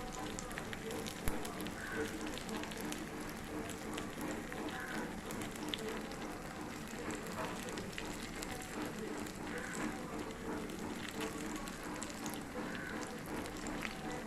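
Banana fritters (pazhampori) deep-frying in hot oil: a steady crackling sizzle with many small pops.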